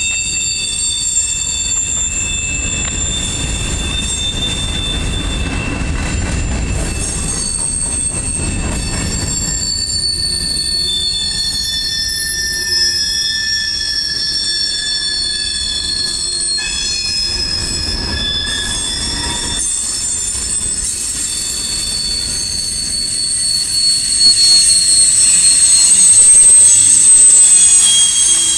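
CSX freight train's cars rolling past with steel wheels squealing against the rails: several high-pitched squeal tones overlap and shift over a low rumble, growing louder near the end.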